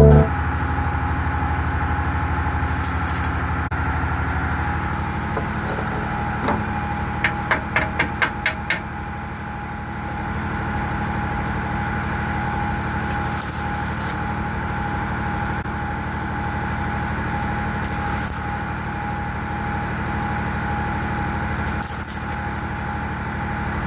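A machine running steadily with a constant hum and a held tone, with a quick run of about eight sharp clicks about a third of the way through.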